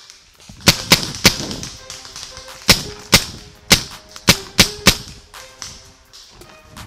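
Paintball markers firing at close range: about nine sharp pops, three in quick succession about a second in, then single shots and a short run of three.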